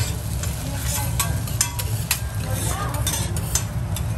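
Steel teppanyaki spatulas scraping and tapping on the flat-top griddle as food is chopped and turned in sizzling oil. The sharp clicks of the spatulas come in quick clusters at the start and end and more sparsely in between, over a steady low hum.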